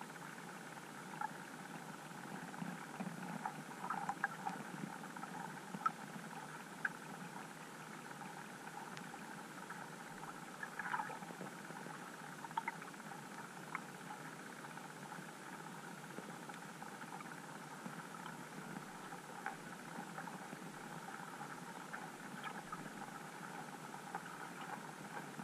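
Underwater ambience picked up by a GoPro in its waterproof housing: a steady muffled hiss with scattered small clicks and ticks, bunched about four to seven seconds in.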